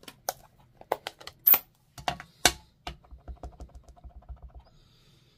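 Sharp plastic clicks and clacks of stamping supplies being handled, the loudest about a second and a half in, then a quick run of about a dozen soft taps: a photopolymer stamp being patted onto an ink pad to ink it.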